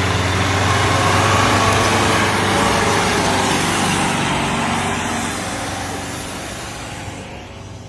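Engine of a modified Mahindra Bolero 4x4 running loud and steady, then fading gradually over the last few seconds.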